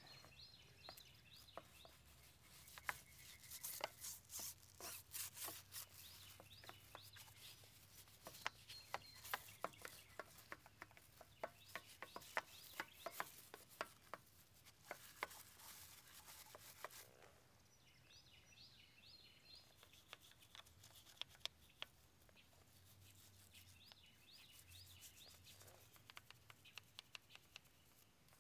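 A hand brush scrubbing brake dust off a wet Mercedes-Benz alloy wheel, in quick scratchy strokes that come in dense runs for the first half and sparser later. Birds chirp faintly in the background.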